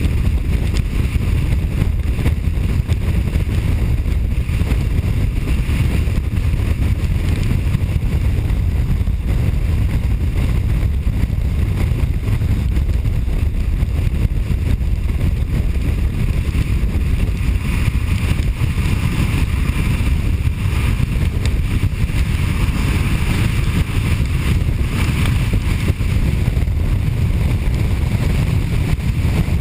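Steady low rumble and hiss of road and wind noise from a vehicle driving at speed along a highway, with the hiss growing a little in the second half.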